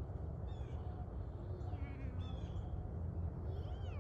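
Short animal calls repeat every second or two, two of them sliding down in pitch, over a steady low rumble.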